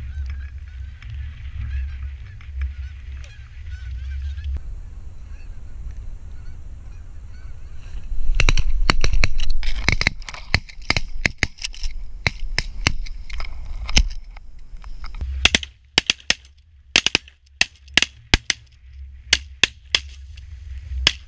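Canada geese honking, with wind rumbling on the microphone. About eight seconds in the honking turns loud and dense, then breaks into separate short honks.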